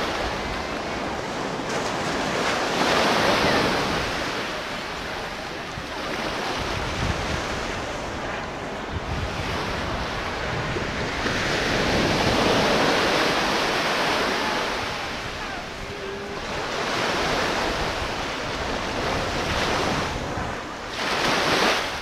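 Ocean surf breaking on a sandy beach, a steady wash that swells and fades every few seconds as each wave comes in.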